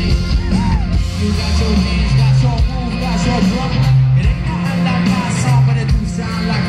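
Live pop-rock band playing loud through a concert sound system, with a heavy bass line and a voice singing over it.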